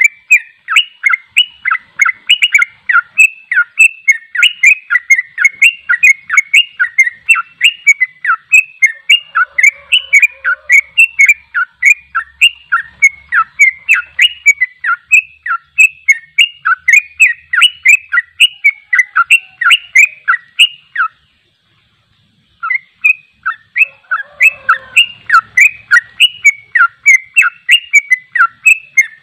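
Yellow-vented bulbul (trucuk) singing a fast, continuous chattering run of notes, about four a second, in the rapid 'ropel' style. It breaks off for a second and a half about two-thirds of the way through, then carries on.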